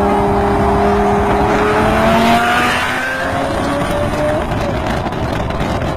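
Lamborghini Gallardo V10 accelerating hard at highway speed and pulling away, its engine note climbing and then fading, over heavy wind and road rush.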